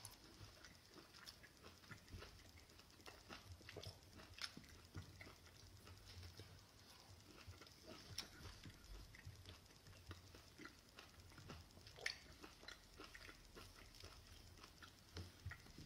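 Faint chewing with small wet mouth clicks as a person eats juicy golden nugget mandarin segments, and the soft tearing of segments being pulled apart.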